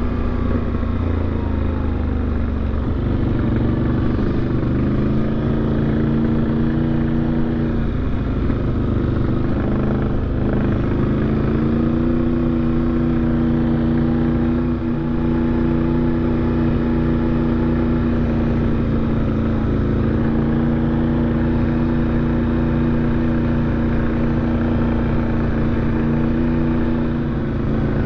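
ATV engine running at a steady cruising speed, its pitch sliding down over the first few seconds, dipping briefly about ten seconds in, then holding steady for the rest of the ride.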